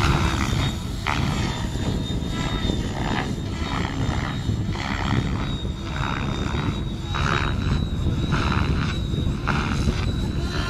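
A radio-controlled model helicopter flying aerobatic set manoeuvres: a steady high whine from its drive, with the rotor sound swelling and fading over and over as the model turns and changes attitude.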